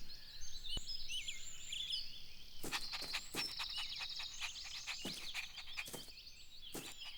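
Soundtrack bird ambience: small birds chirping and twittering in high, quick gliding calls. From about two and a half seconds in, a series of short, soft knocks is heard under the chirping.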